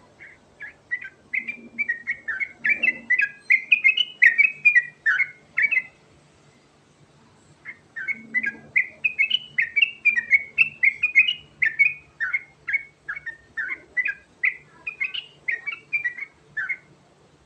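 Yellow-vented bulbul (trucukan) singing long, fast runs of short chattering notes. There are two bouts with a pause of about two seconds between them.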